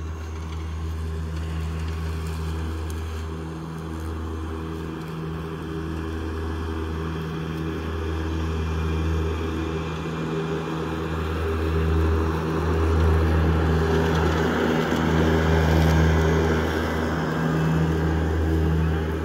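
EGO battery-electric zero-turn mower running while mowing, a steady motor hum with the whir of the cutting blades. It grows louder from about two-thirds of the way through as the mower comes close.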